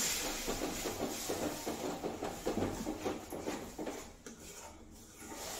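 Fried masala in a metal kadai sizzling and hissing after a splash of water goes in, the hiss dying down over the first few seconds. Through it, a spatula scrapes and taps quickly against the pan as the masala is stirred.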